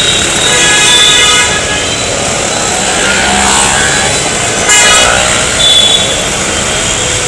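Busy city street traffic: engines of auto-rickshaws, motorbikes and trucks running, with vehicle horns honking. One horn sounds for about a second near the start, and another short one comes around five seconds in.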